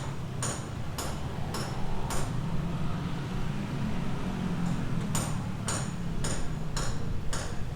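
Hammer striking metal, about two blows a second with a bright ring on each, in two runs of five separated by a pause of about three seconds. A steady low hum runs underneath.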